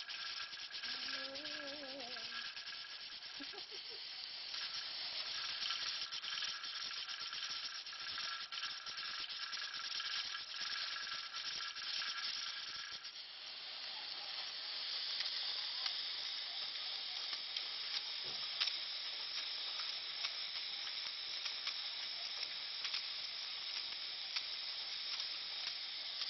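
All American pressure canner hissing steadily as steam escapes at its weighted regulator, holding 10 pounds of pressure.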